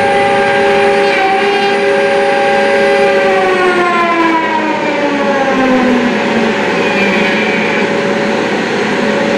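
Electric plunge router running with a loud, steady whine as it is guided along a rail system to cut lap joints in wood panels; about halfway through, several of its tones slide lower.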